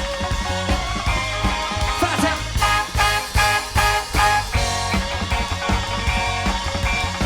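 Live soul band playing an instrumental passage: drums and bass keeping a steady beat under sustained chords, with a run of loud accented band hits in the middle.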